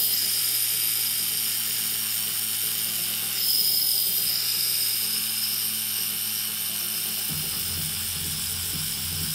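Tattoo machine running steadily with a low hum and a high whine as it packs reddish ink into the skin over grey shading. About seven seconds in, the low hum turns into an uneven pulsing.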